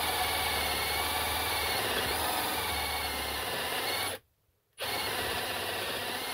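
Handheld electric drill running with an 8.5 mm bit, boring a pilot hole into an aluminium billet, its motor whine wavering under load. The sound breaks off for about half a second around four seconds in, then carries on.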